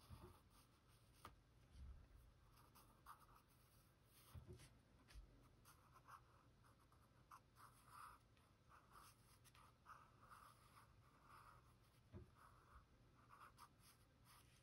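Faint scratching of a pencil drawing short strokes on sketchbook paper, coming and going in short spells, with a few soft knocks.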